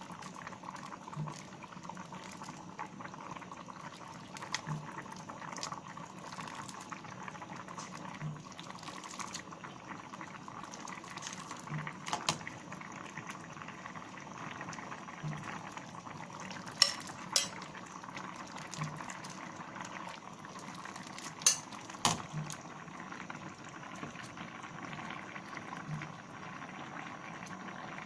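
A pot of thick rice porridge with crab sticks bubbling steadily at the boil. A few sharp utensil clinks against the pot and dishes cut through it, two close together in the middle and two more a few seconds later.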